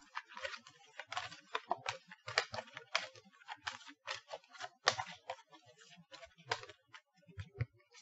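Oracle cards being drawn from the deck and handled, a run of quick, irregular clicks and rustles that thins out near the end.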